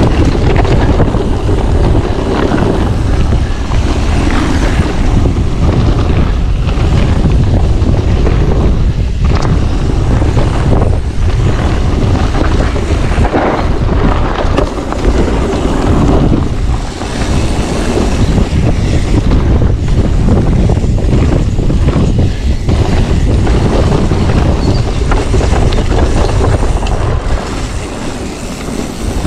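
Wind buffeting an action camera's microphone during a fast e-mountain-bike descent, with the continuous rumble and rattle of the bike over rough trail.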